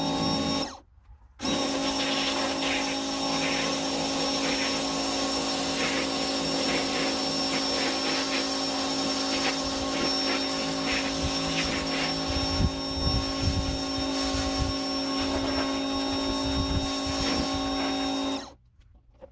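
Electric power tool running steadily with a constant motor hum, with gritty scraping at times. The sound cuts out briefly about a second in and again near the end.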